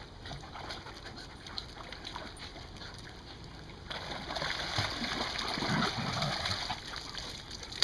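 Water splashing and sloshing as a dog swims, faint at first and becoming louder and busier about four seconds in.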